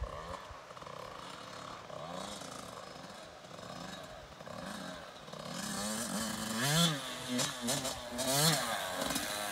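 Small dirt bike engine, faint at first and growing louder as the bike comes closer. Near the end it revs up and back down twice.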